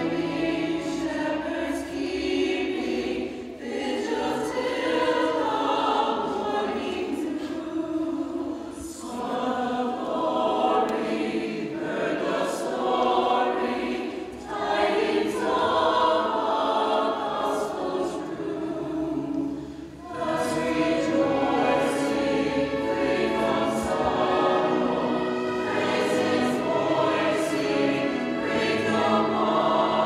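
Mixed choir singing with a small string orchestra accompanying. The music breaks off briefly between phrases about three and a half, fourteen and twenty seconds in.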